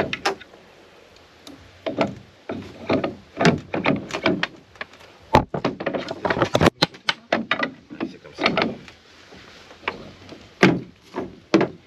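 Oars and metal outriggers knocking and clattering irregularly as they are handled and fitted onto a sculling boat.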